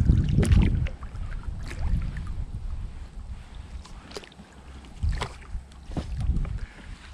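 Small boat being moved through shallow bog water: irregular splashing and knocks, loudest in the first second and again from about five to six and a half seconds in.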